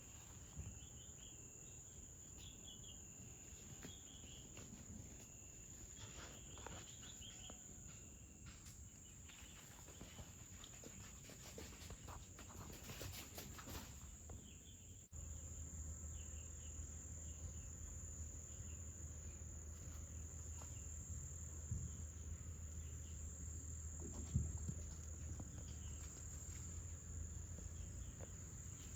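Insects trilling steadily at one high, unbroken pitch, faint. About halfway through a cut brings in a low steady rumble beneath it.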